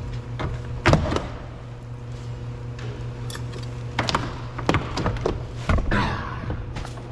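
Plastic knocks, clunks and a brief scrape as a car's interior door trim panel is handled and lifted off the door, with a loud knock about a second in and several more a few seconds later, over a steady low hum.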